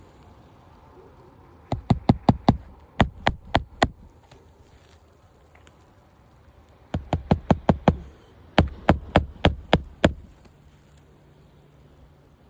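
Hammer driving roofing nails into a new asphalt shingle: sharp blows in quick runs of four to seven, about three to four a second, with short pauses between runs.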